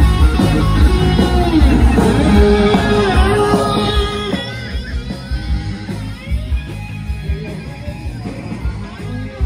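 Guitar-based rock music with singing, loud at first and dropping in level about halfway through.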